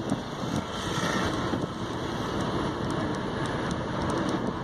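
Steady road and wind noise inside a small car's cabin while it drives at highway speed.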